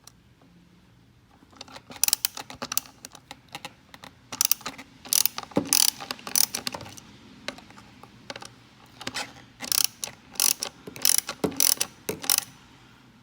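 Socket ratchet clicking in short quick runs as the small bolts holding down a motorcycle ignition switch are backed out, with pauses between bolts.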